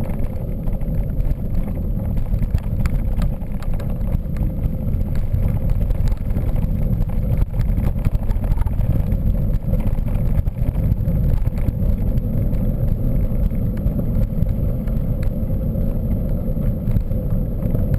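Mountain bike riding along: a steady low rumble of wind on the camera microphone and tyres rolling over the trail, with scattered small knocks and rattles from the bike.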